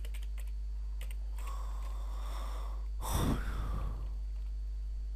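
A person's breath close to the microphone: a long soft intake, then a louder sigh-like exhale about three seconds in, over a steady low electrical hum.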